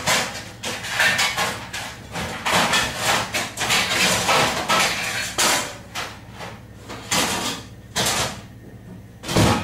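Metal baking tray and other kitchenware clattering and knocking as they are put away in a cupboard, with a heavier thump near the end.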